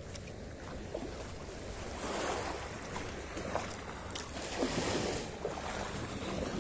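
Sea waves washing on a shore with wind buffeting the microphone, swelling louder twice.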